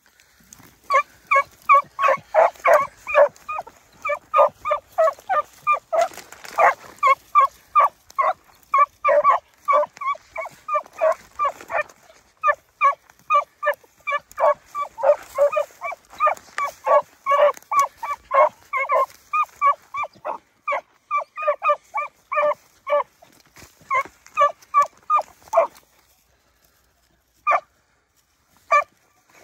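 Beagles giving tongue on a rabbit's scent, a steady run of short pitched hound barks at about three or four a second. The barking stops about 26 seconds in, followed by two lone barks near the end.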